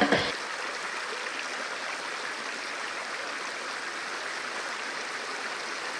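Steady rush of flowing river water, even and unbroken, with the last note of a music sting cutting off right at the start.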